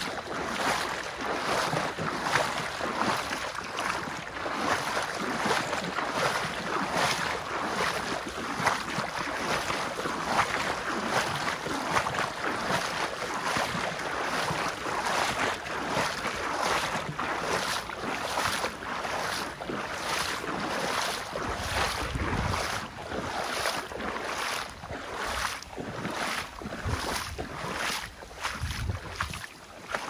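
Running river water with wind on the microphone, a continuous rushing noise crossed by soft regular strokes about twice a second. Low gusts of wind bump the microphone a few times near the end.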